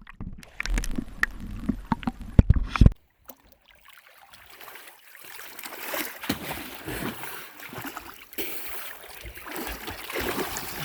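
Water splashing with sharp knocks for about three seconds, then a brief near-silence, then a steady rushing, gurgling water noise.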